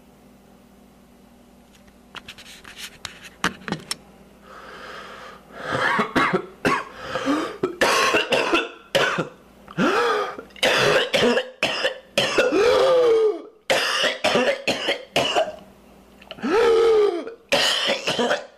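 Paroxysmal coughing fits of whooping cough (pertussis), confirmed by laboratory culture. Short coughs start about two seconds in and build into loud runs of rapid coughs. Several runs end in a drawn-out whooping in-breath that rises in pitch.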